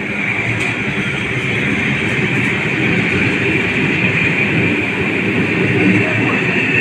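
ED4M electric multiple unit running past, a steady loud rumble of wheels on the rails with a hiss on top, swelling slightly near the end.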